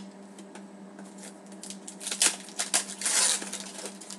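Hands handling a stack of hockey trading cards: a run of card-on-card rustles and flicks, starting a little before halfway and loudest in the second half, then tailing off.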